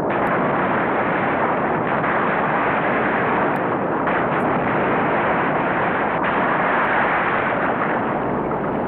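Logs tumbling down a log dump slide into a river, a steady, unbroken rumble with no single crash standing out.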